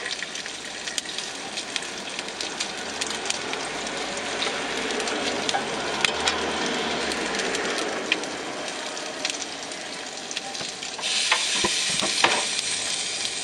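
Bacon frying in a pan, a steady sizzle with scattered clicks and knocks of a utensil, the hiss growing louder near the end.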